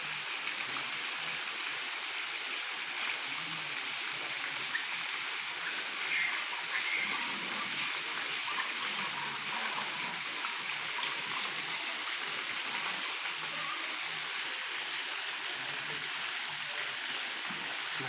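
Small waterfall pouring down a rock face into a pool, a steady rush of falling water.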